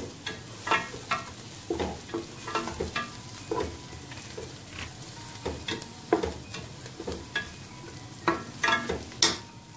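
Wooden spatula stirring and scraping chopped garlic, onion and chillies frying in a little oil in a metal pan, with irregular knocks of the spatula against the pan over a low steady sizzle.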